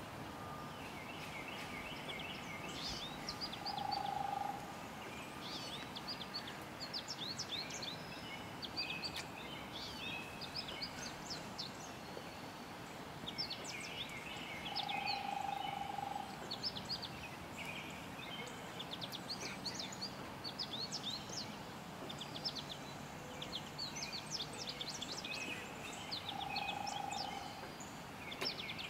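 Small birds chirping and singing in quick bursts throughout. A steady, mid-pitched held tone sounds three times, each under a second long and roughly eleven seconds apart.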